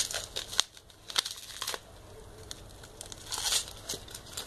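Plastic bubble wrap crinkling and rustling as a product is pulled out of it, in a string of short crackly bursts, the biggest cluster a little after three seconds in.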